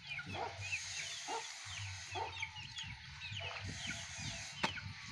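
Birds chirping and calling over and over, with a paint spray gun hissing in two stretches as top coat is sprayed, and one sharp click near the end.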